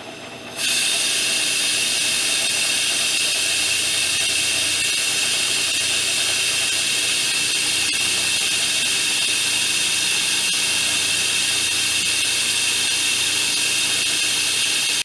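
Milling machine's end mill cutting a radius into a metal plate: a loud, steady, high-pitched cutting whine that comes in under a second in and holds even throughout.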